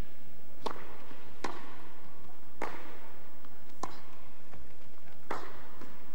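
Tennis rally opening with a serve: five sharp pops of racket on ball and ball on court, about a second apart, each with a short echo.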